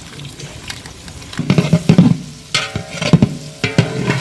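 A long metal paddle scrapes and stirs chopped onions and chilli powder frying in oil in a large aluminium pot, with sizzling. The strokes are soft at first and turn loud and irregular about a second and a half in, with sharp metal-on-metal clicks and a brief ringing of the pot.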